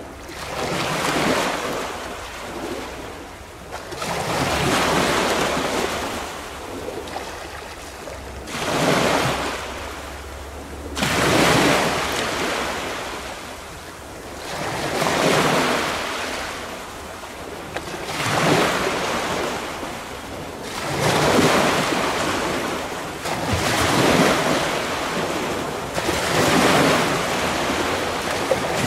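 Small sea waves breaking and washing on the shore in a slow rhythm, one surge every three seconds or so. Wind buffets the microphone with a low rumble for several seconds in the first half.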